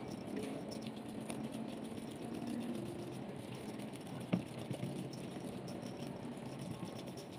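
Silicone spatula stirring and folding a thick, wet dough in a plastic tub: a continuous squelching scrape, with one sharp click about four seconds in.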